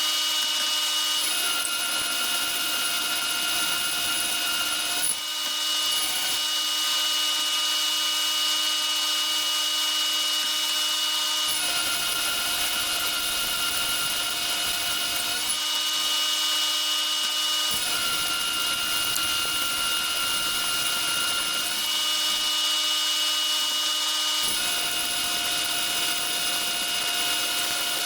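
Metal lathe cutting a half-inch steel plate: a steady machining noise with high whining tones that change abruptly every few seconds.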